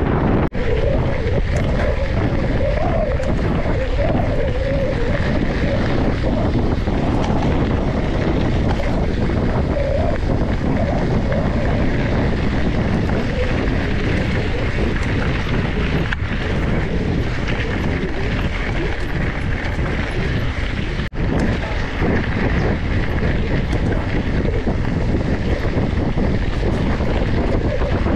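Steady wind noise buffeting an action camera's microphone as a mountain bike is ridden along, with two brief dropouts in level, just after the start and about three quarters of the way through.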